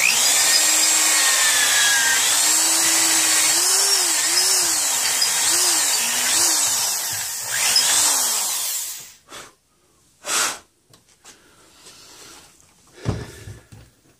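Corded electric drill boring down into the end of a wooden hoe handle. The motor's pitch sags and recovers several times as the bit bites into the wood, and it stops about nine seconds in. A short burst follows about a second later, then a knock near the end.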